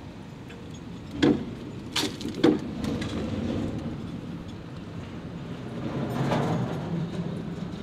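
Three sharp knocks in quick succession, between about one and two and a half seconds in, over a steady low rumble that swells again later on.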